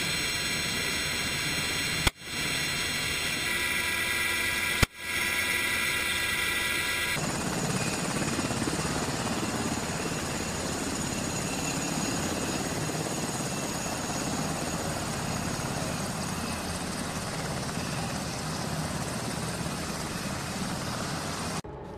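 Steady rotor and turbine noise inside a Black Hawk helicopter's open cabin, broken twice by a sharp rifle shot about three seconds apart, each briefly choking the sound. About seven seconds in it changes to the even rush of a Black Hawk helicopter's rotors heard from outside as it comes down onto a runway.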